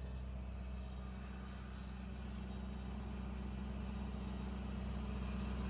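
Kaeser M 115 N mobile compressor's Kubota V3800 four-cylinder diesel engine running steadily.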